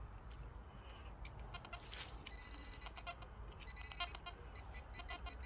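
Nokta pinpointer probe beeping in several short bursts of rapid, steady-pitched pulses, the longest about two seconds in, as it is worked through the soil of a dig hole: its alert for metal close to the tip.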